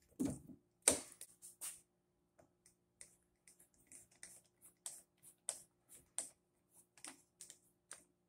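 Two knocks from a bar clamp being set on a guitar neck, then light, uneven clicking, about two clicks a second, as a threaded insert is driven into the neck by hand with a long-shafted insert driver.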